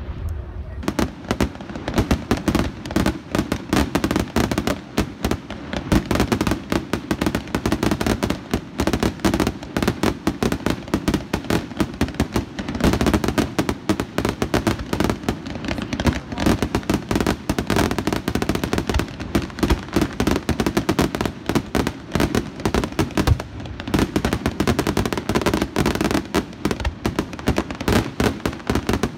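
Fireworks going off in a dense, continuous barrage of rapid crackling and popping, many small reports a second with no letup.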